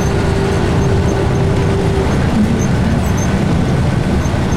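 Steady engine and road noise inside a moving bus driving through heavy rain. A steady hum in the mix stops about two seconds in.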